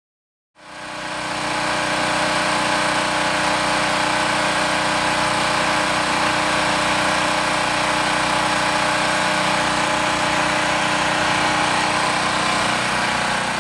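Engine-driven electric generator running steadily, a constant engine drone that fades in about half a second in.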